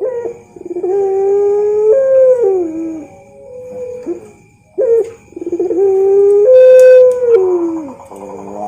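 Puter pelung dove cooing: long, deep, drawn-out coos that rise a little, hold, then slide down in pitch, in two phrases with a short gap about four seconds in.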